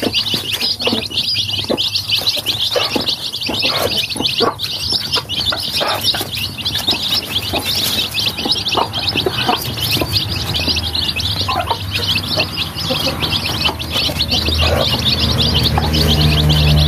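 A brood of young chicks peeping continuously, many high chirps overlapping, with scattered short taps as they peck at feed. A low steady hum builds up over the last few seconds.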